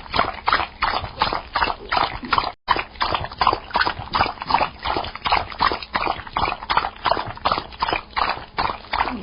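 Dog lapping water with its tongue in quick, even laps, about three or four a second, with a brief break to silence about two and a half seconds in.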